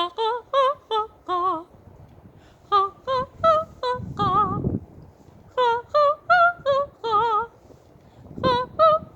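A woman singing a vocal warm-up exercise: short sung notes with vibrato that step up and back down in a pattern, repeated three times, each time starting a little higher.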